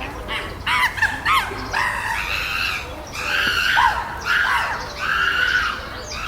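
Chimpanzees screaming and calling: a few short rising-and-falling calls about a second in, then four longer, loud screams in a row.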